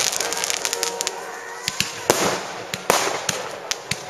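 Fireworks going off: a rapid, irregular string of sharp bangs and crackles, with bigger crackling bursts about two and three seconds in.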